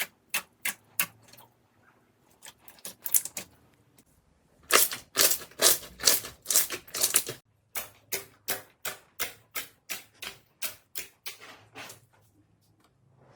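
Runs of sharp, crisp crunching clicks, about three to four a second, with a dense, loud run in the middle: crunchy ASMR material being cut or pressed.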